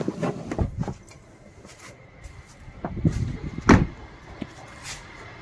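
Rustling and knocks of someone getting out of a Maruti Suzuki Swift hatchback, then the car's side door shut with one loud thud a little under four seconds in.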